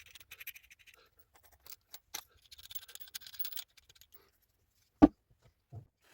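Workshop handling noises: light scratching and small clicks, then one sharp knock about five seconds in and a softer knock just before the end.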